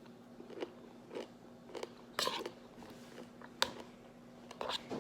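A person chewing a mouthful of berries and pomegranate seeds, with a series of short, irregular crunches and wet mouth clicks. The crisp pomegranate seeds give the crunch.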